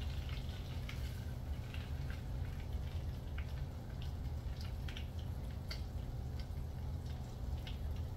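Chicken thighs searing skin side down in hot oil and butter in a pan, sizzling with irregular pops and crackles over a steady low hum.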